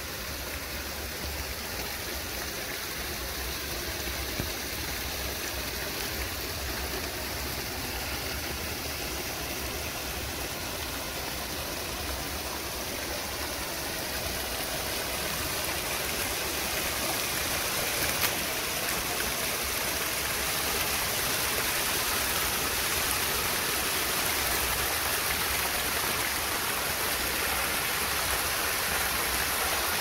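Steady rush of flowing stream water over rocks, slowly growing louder, with one brief click about two-thirds of the way through.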